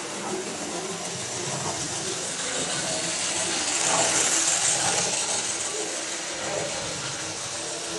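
Model railway train running on the layout's track, a steady rushing hiss of motor and wheels that swells to its loudest about four seconds in, then eases off.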